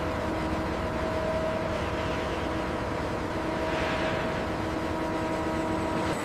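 Heavy industrial machinery running steadily: a constant engine-like drone with several held humming tones.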